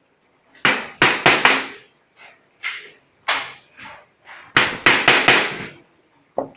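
Hand hammer striking the edge of a thin sheet-metal cone, about a dozen blows, each with a short metallic ring. The loudest come in two quick runs of three or four strikes, about a second in and again about five seconds in, with lighter single taps between.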